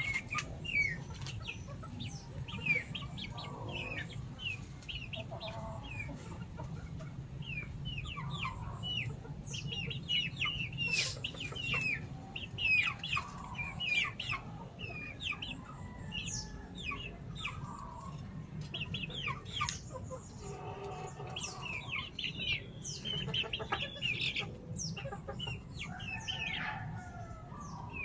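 Native chickens clucking now and then, with a dense run of short, high chirps and peeps throughout.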